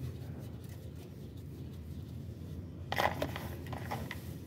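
A brief metallic scrape and knock about three seconds in as a steel oil pan is pushed up into place against the engine block, over a steady low hum.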